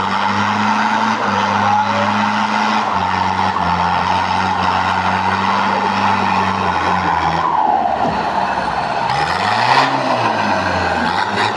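Off-road 4x4 engine running under load on a dry dirt trail, with a steady rush of tyre and gravel noise. Near the end the revs rise and fall once.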